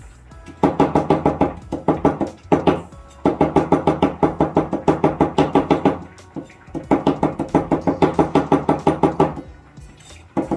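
Cleaver rapidly mincing fresh ginger on a plastic cutting board: quick, even chops at about six or seven strokes a second, each with a ringing knock, in several bouts broken by short pauses.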